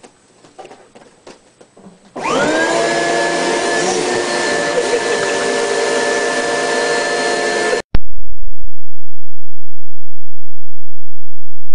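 An upright vacuum cleaner's motor switches on about two seconds in, its whine rising as it spins up and then running steadily. It cuts off abruptly about eight seconds in. A few faint taps come before it.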